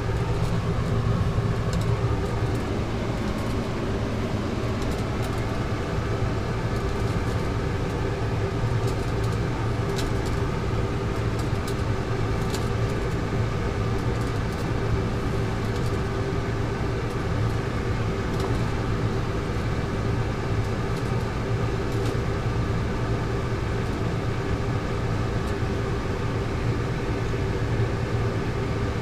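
Steady low mechanical hum of a motor or engine running, with a few faint ticks.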